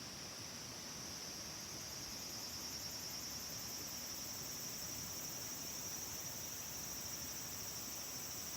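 Insects, crickets or similar, singing in a steady high-pitched trill that grows a little louder about two seconds in.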